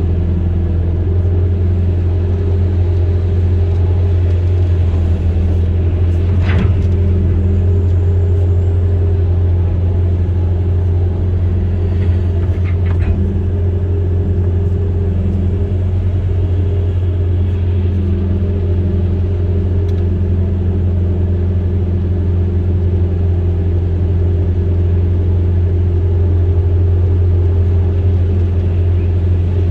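Amphibious excavator's diesel engine running steadily: a deep, constant drone that holds one pitch, with a brief knock about six seconds in and a couple more about twelve seconds in.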